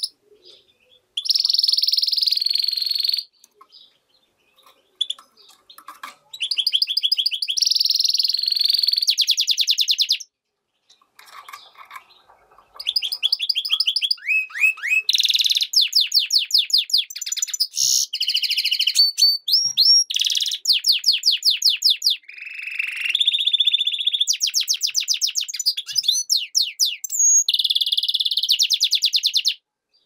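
European goldfinch × canary hybrid (mule) singing: runs of fast trills and high rolling notes with quick upward whistled glides. The song comes in short bursts with pauses at first, then runs almost unbroken through the second half.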